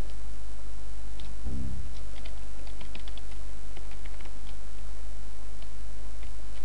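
Computer keyboard typed on in scattered, irregular keystrokes, including backspacing, over a steady low hum.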